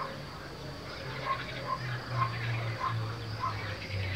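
Small animal calls: short chirps repeating roughly twice a second, with a faint high buzzing trill behind them and a steady low hum underneath.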